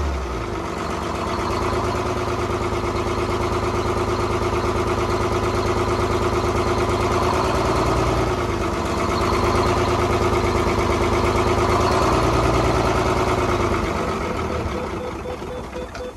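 Detroit Diesel two-stroke diesel engine in a heavy truck, running at a steady idle after dropping back from higher revs at the start. Near the end it slows, stumbles and dies away as it is shut down.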